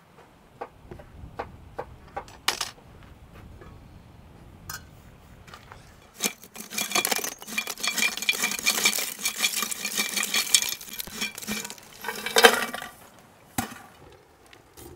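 Lumps of charcoal poured from a metal pot into a clay-lined bucket brazier, clattering and clinking against the pot and each other for several seconds, with a second, louder tumble of lumps near the end. A few light knocks come before the pouring starts.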